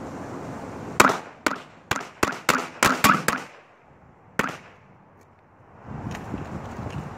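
A small pack of Black Cat firecrackers going off: about nine sharp bangs in quick, uneven succession over some two seconds, then one last bang about a second later.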